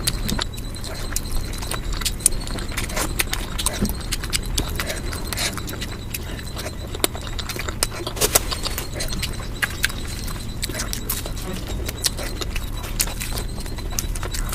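Eating sounds of a mukbang sped up five times: a dense run of irregular clicks, snaps and crunches from chewing over a low rumble.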